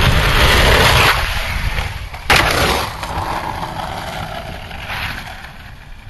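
Skateboard wheels rolling on rough asphalt with a coarse rushing noise, then one sharp crack of the board a little over two seconds in, a pop or landing. The rolling fades as the board moves away.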